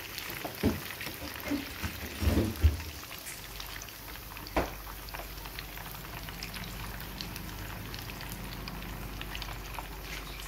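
Batter-coated chicken pieces deep-frying in hot oil, a steady crackling sizzle like light rain. A few knocks in the first five seconds come from the wire skimmer striking the pan.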